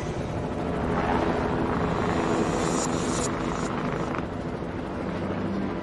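Helicopter hovering low: steady rotor and engine noise.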